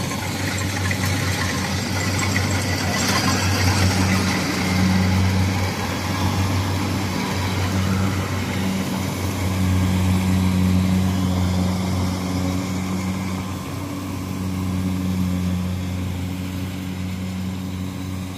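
Kubota DC-105 rice combine harvesters running while cutting rice: a steady diesel engine drone with the whirr of the machinery, swelling and easing a little as the nearest machine passes close by.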